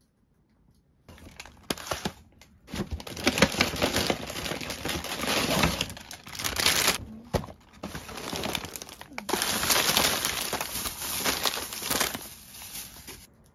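Plastic snack wrappers and paper packaging rustling and crinkling as snacks are handled and unpacked from a parcel box. It starts about a second in and goes in several bouts with brief pauses, then stops abruptly just before the end.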